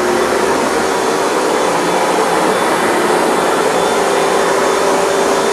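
Hoover Dual Power Max upright carpet cleaner running steadily on a rug: an even rush of suction with a steady motor hum.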